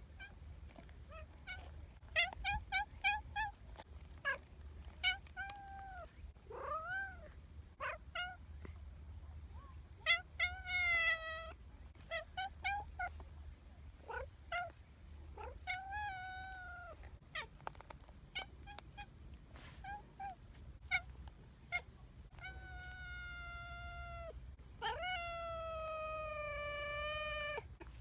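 A cat meowing again and again: many short meows and quick chirping calls, then two long drawn-out meows near the end.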